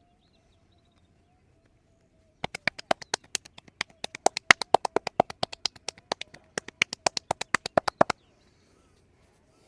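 Rapid, even train of sharp slaps, about seven a second for five or six seconds, starting a couple of seconds in and stopping abruptly: a masseur's hands tapping or chopping on the body in percussive massage strokes.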